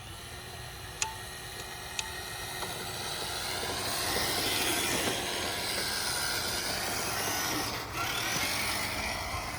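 Traxxas TRX-6 6x6 RC crawler driving in low gear: its electric motor and drivetrain running with the tyres working over the ground, growing louder over the first four seconds as the truck comes closer. Two sharp clicks sound in the first two seconds.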